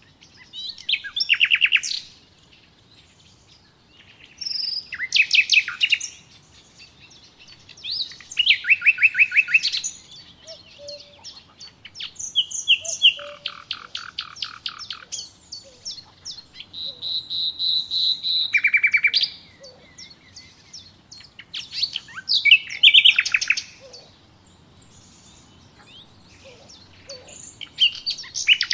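Songbird song: about eight short phrases, each a second or two of quick repeated high notes, trills and falling sweeps, separated by pauses of a second or two.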